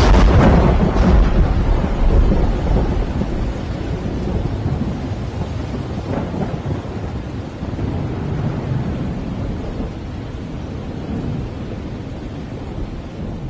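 A close thunderclap: a sharp crack at the start, then a heavy low rumble that rolls away over several seconds, with a smaller crack about six seconds in. Steady rain runs underneath.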